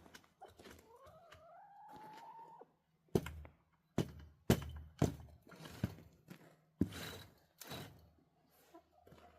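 A run of hollow thunks and knocks from a chicken coop door and gear being handled, after a rising squeak about two seconds long near the start.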